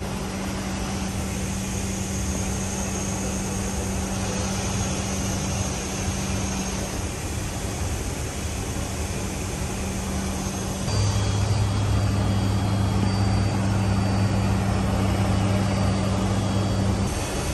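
Steady propeller and engine drone inside the flight deck of a Lockheed C-130J in flight, from its four Rolls-Royce AE 2100 turboprops, with a hiss of rushing air. The low hum grows louder about eleven seconds in and shifts again near the end.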